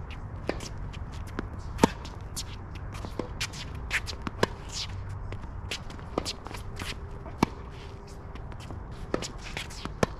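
Tennis groundstroke rally: sharp racket-on-ball strikes and ball bounces at irregular intervals of roughly a second, the loudest about two seconds in and again about seven seconds in, with footsteps shuffling on the court between shots.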